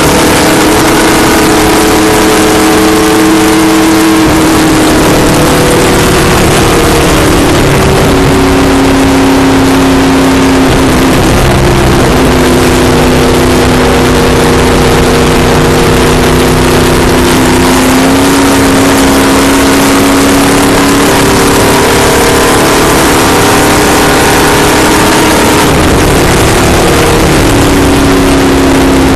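Stock car's V8 engine running flat out at high speed, heard from inside the cockpit over heavy wind and road noise. The engine note sags slightly and climbs again a few times.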